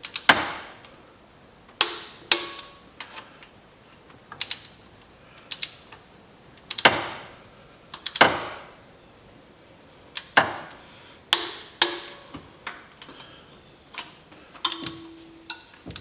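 Torque wrench on intake manifold bolts: a loud sharp click every second or so, sometimes two close together, with lighter ticks between. Each click is the wrench breaking over as a bolt reaches the 30 ft-lb spec.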